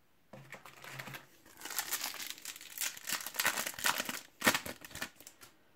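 Foil wrapper of a Match Attax trading-card booster pack crinkling and tearing as it is handled and opened, a dense run of crackles.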